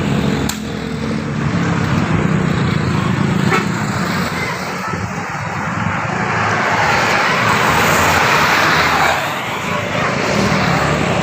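Road traffic passing close: a steady low engine rumble, with road noise swelling and fading again between about six and nine seconds in.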